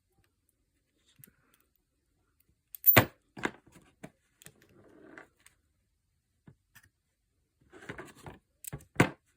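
Sharp metal clicks and knocks from a padlock being handled just after its new core is put in: one loud click about three seconds in, a lighter one right after, and a cluster of clicks near the end with another loud one.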